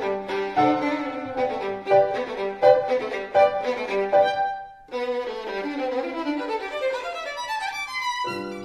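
Background music: a melody of short, quickly changing pitched notes, with a brief break a little past halfway through.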